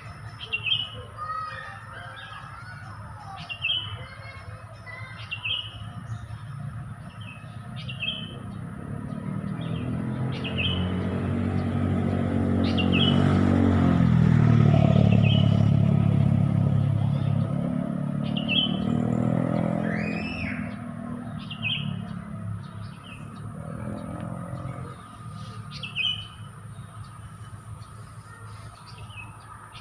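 Sooty-headed bulbul (kutilang) calling: short, clear notes repeated every two to three seconds, with other bird chirps. In the middle a vehicle passes: a low engine rumble swells to the loudest point of the clip, then fades away.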